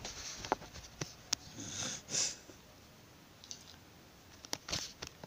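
Handling noise from a handheld camera: scattered clicks and light knocks, with a short hiss about two seconds in.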